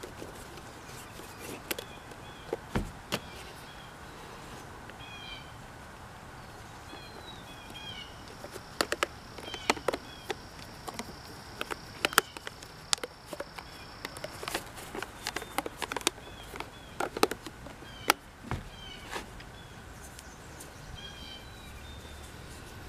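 Scattered clicks, taps and snaps of rubber bands being stretched around a glued tennis shoe and the shoe being handled on a wooden table, over short, repeated bird chirps.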